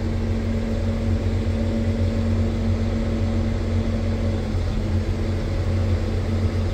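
Articulated dump truck's diesel engine and drivetrain running steadily as the truck drives forward in gear, heard from inside the cab: an even low drone with a constant tone riding on it.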